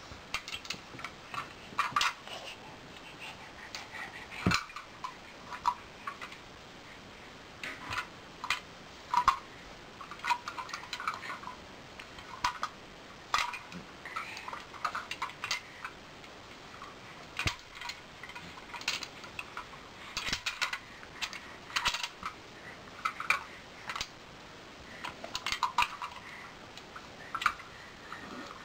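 Small hard-plastic toy cars being handled by babies: irregular light clicks and clacks of plastic knocking and rattling, a few every couple of seconds.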